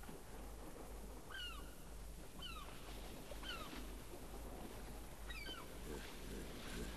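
Faint seagull cries: a few short calls about a second apart, each falling in pitch, over a low steady hum.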